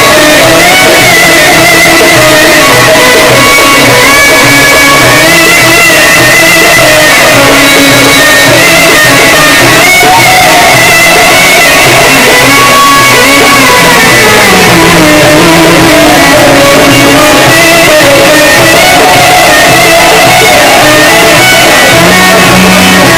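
Loud Egyptian Sufi inshad ensemble music: oud and violin playing a winding melody over a steady repeating beat of frame drums.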